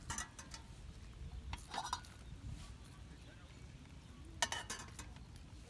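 Three short bursts of clinking and scraping, typical of a metal utensil working in a pot or pan, over a low steady rumble.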